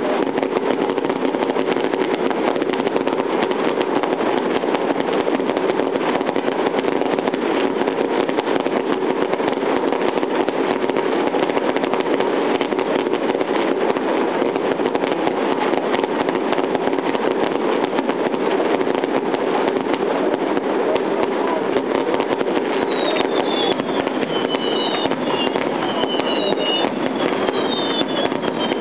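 Fireworks finale: a dense, unbroken barrage of bursts and crackle, loud and steady throughout. From about two-thirds of the way in, several short falling whistles join in.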